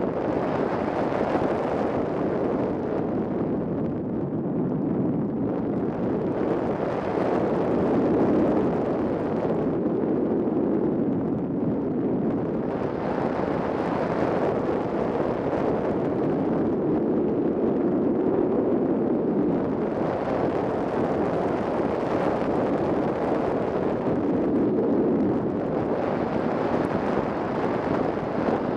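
Wind rushing over the onboard camera of a 3-metre Ka8b radio-controlled model glider in flight. A steady airflow noise with no engine note, swelling and fading every several seconds.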